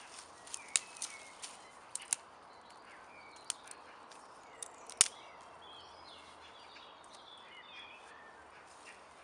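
Wood campfire crackling: a few sharp, irregular pops, the loudest about halfway through, over a faint hiss. Small birds chirp in the background in the second half.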